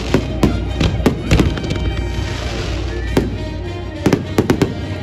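Fireworks going off in a string of sharp bangs with crackling between them, the bangs clustered in the first second and a half and again about four seconds in, over music.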